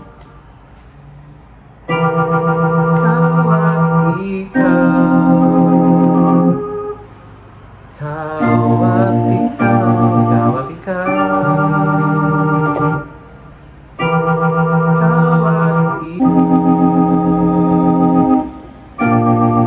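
Organ sound on a Yamaha MX-61 synthesizer, playing held chords in a repeating four-chord progression: E-flat major 7 sus2, E diminished, F minor 7 sus2, B-flat 6. Each chord is held about two seconds, with short breaks between.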